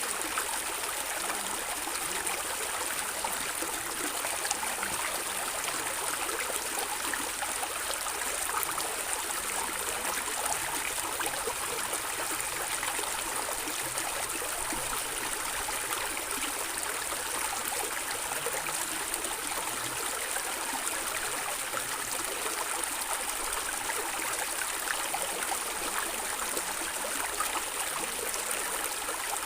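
Stream water running and gurgling over stones, a steady even rush with no change.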